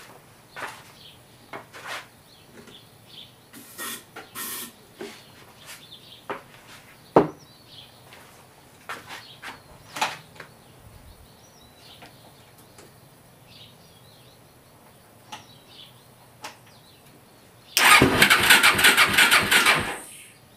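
Electric starter cranking a Suzuki QuadSport ATV's single-cylinder four-stroke engine for about two and a half seconds near the end, in an even rhythm, without it catching: the quad has no spark, which is traced to a bad CDI. Before that come scattered light clicks and knocks of handling the machine.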